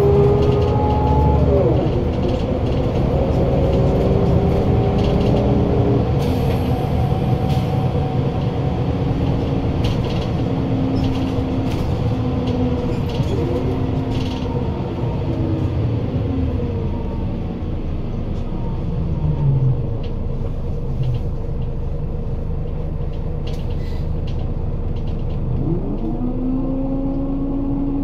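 Scania L94UB city bus driving, its engine and ZF Ecomat 2 automatic gearbox whining over a low rumble, loud. The whine changes pitch in steps as gears change, falls away slowly about two-thirds of the way through as the bus slows, then rises sharply near the end as it pulls away again. Scattered clicks sound throughout.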